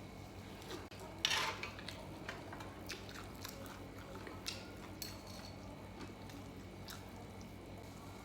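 A person chewing and biting food close to the microphone: irregular wet clicks and crunches, with one louder crunchy bite about a second in.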